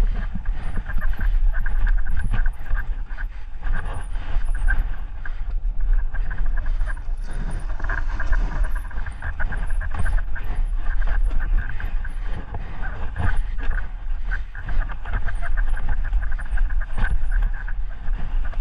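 Mountain bike riding fast down a muddy, rutted dirt trail: tyres rolling over dirt and the bike rattling over bumps, with a steady rasping buzz and heavy wind rumble on the camera mic.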